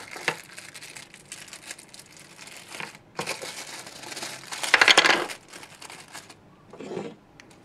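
Thin clear plastic bag crinkling and rustling in the hands as it is opened and round action-camera mounts are pulled out. There is a louder burst of crinkling about five seconds in, then it dies away to a short soft sound near the end.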